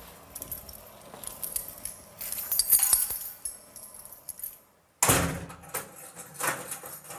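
Keys jangling, then a heavy steel cell door slams shut about five seconds in, followed by a second, smaller metallic clunk.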